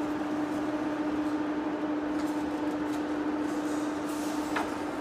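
Heavy floor-type lathe running with a steady mechanical hum and a constant low tone. A short squeal falls in pitch about four and a half seconds in.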